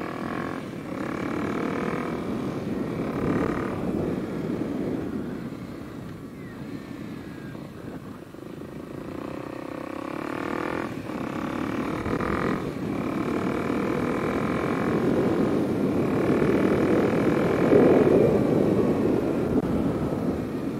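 Kawasaki KLX 300 dirt bike's single-cylinder four-stroke engine running through a new Delkevic carbon slip-on exhaust while riding, its pitch rising and falling as it accelerates and shifts several times. It grows loudest a few seconds before the end.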